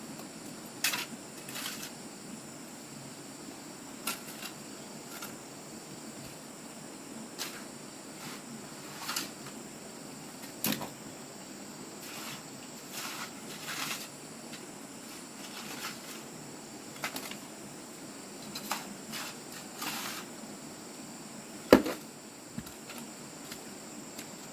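Scattered short clicks and knocks at an irregular pace over a steady background hiss, with one sharper, louder knock near the end.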